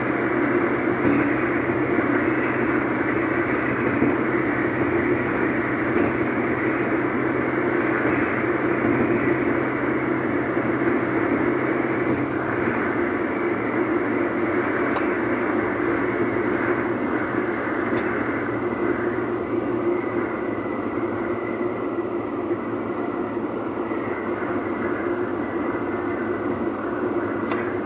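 Car cabin noise while driving on a motorway: a steady rush of tyre and road noise with a low drone underneath.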